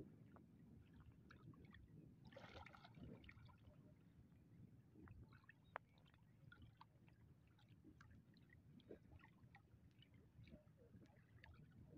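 Near silence, with faint sloshing and gurgling of river water around a man wading chest-deep, a little louder about two and a half seconds in.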